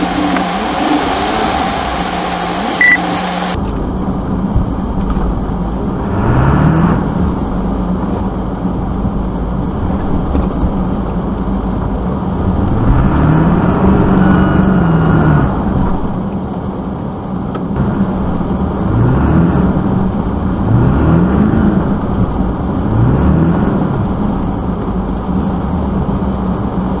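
Vehicle engine revving up in about five repeated surges, the pitch climbing each time and once falling back, over a steady engine hum.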